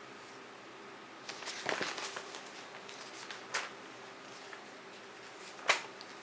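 Magazine pages being handled and turned. There is a rustling flurry about a second and a half in, then a short paper flick, and a sharper, louder page flip near the end.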